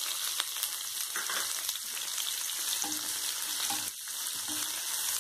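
Chopped onions sizzling as they fry in hot oil in a nonstick pan, stirred with a silicone spatula, with a few light scrapes and taps against the pan over a steady hiss.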